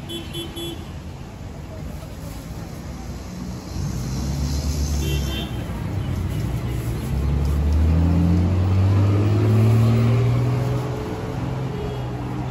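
Street traffic: a motor vehicle's engine passes close by, growing louder with its pitch rising to a peak about eight to ten seconds in, then easing off. Short high beeps sound twice, near the start and about five seconds in.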